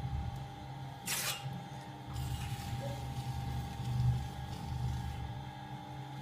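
Potter's wheel running with a steady motor hum and a fluctuating low rumble as hands work the wet clay walls of a tall vase being thrown. A short hiss comes about a second in.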